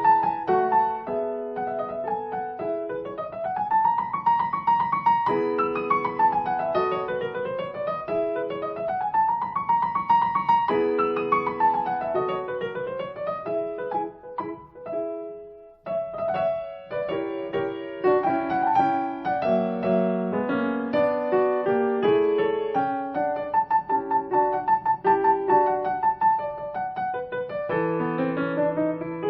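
Piano music with sweeping runs that rise and fall, with a brief break about halfway through.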